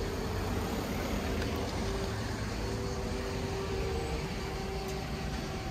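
Town street ambience: a steady low rumble of traffic, with a faint engine hum holding one pitch.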